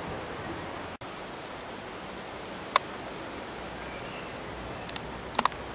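Steady outdoor background hiss. There is a brief dropout about a second in, a single sharp click near the three-second mark, and a few sharp clicks near the end.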